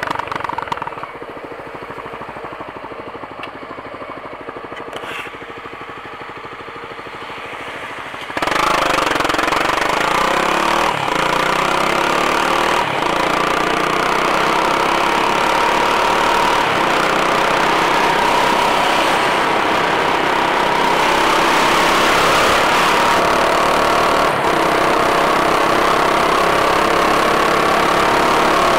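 Honda CBX 250 Twister motorcycle's single-cylinder engine running. It is fairly quiet for about the first eight seconds, then suddenly much louder as the bike pulls away and rides at speed, the engine climbing in pitch under a steady rush of wind over the microphone.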